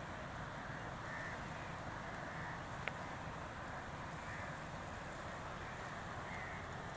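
Steady rush of a fast-flowing, high-running canal. A bird calls briefly about every two seconds, and a single sharp click sounds about three seconds in.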